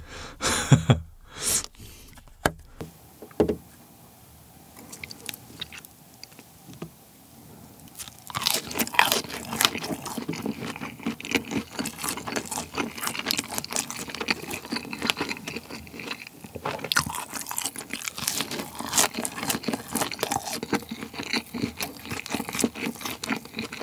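Close-miked crunching and chewing of fried Chicken McNuggets, dense crisp bites from about a third of the way in. A few sharp clicks come in the first seconds, then a quiet stretch.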